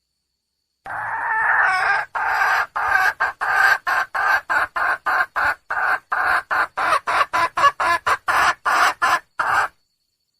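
Wild junglefowl hen calling for a male: one drawn-out call, then a rapid, even run of short clucks about three a second that stops abruptly.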